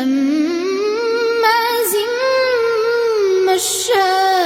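A child reciting the Quran in melodic tajweed chant, drawing out one word in a long rising, wavering melody. There is a short break near the end before the next phrase begins at a lower pitch.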